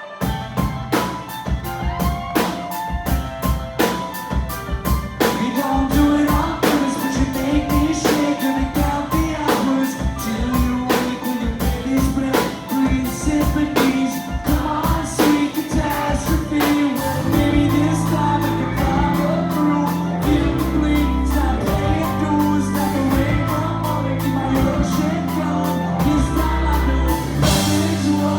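Live rock band with drum kit and singing, recorded from the audience; a driving drum beat runs throughout and the bass comes in heavily about two-thirds of the way through.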